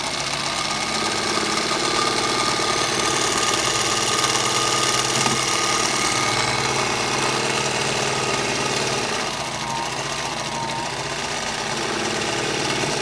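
Singer 221 Featherweight sewing machine running under its electric motor, driving the machine through a freshly fitted Superbelt V-belt. The motor whine climbs in pitch as it comes up to speed at the start, then holds steady with a brief wavering in speed about ten seconds in.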